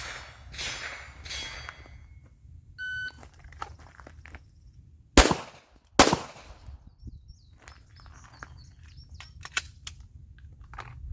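A shot timer beeps once. About two and a half seconds later a pistol fires twice, with the shots just under a second apart: one round on each target from kneeling.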